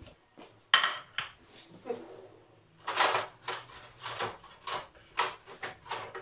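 A plate set down on a kitchen countertop with a single clack, then metal cutlery clinking and rattling in an open kitchen drawer as it is rummaged through for a knife.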